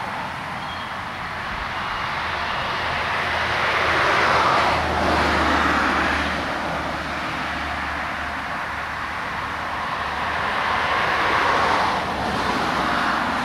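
Road traffic: the tyre and engine noise of cars passing on an asphalt road, swelling as a car goes by about four seconds in and again near the end.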